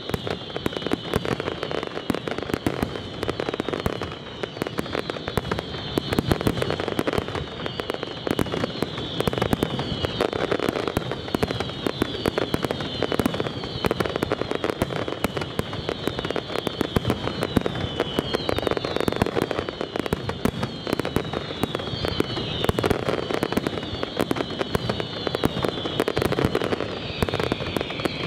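Aerial fireworks display at full barrage: a continuous rapid string of bangs and crackling with no pauses, overlaid by repeated high whistles that fall in pitch.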